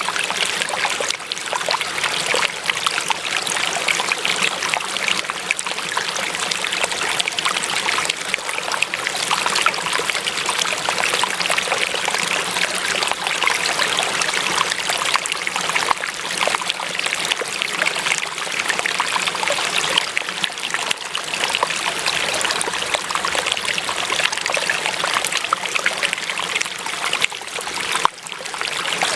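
Water trickling and splashing in a steady, continuous flow, like a small stream running over stones, with a brief drop in level about a second before the end.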